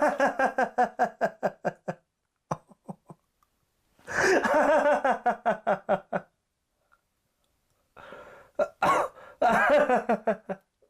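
A person laughing in three bouts of rapid, pulsed ha-ha-ha sounds, each a second or two long, with short silences between.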